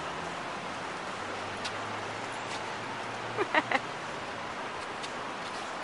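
Steady background hiss, with three short high-pitched vocal yelps from a person about three and a half seconds in.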